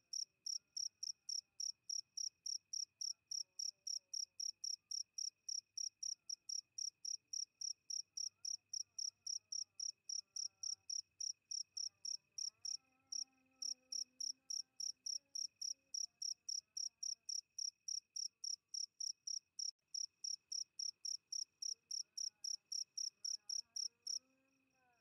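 A cricket chirping in an even rhythm, about three to four short high chirps a second, stopping abruptly shortly before the end.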